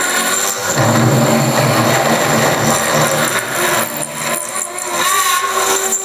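CNC milling machine running, its spindle cutting a 16 mm test hole in aluminium: a steady high whine over a lower hum, shifting in tone near the end.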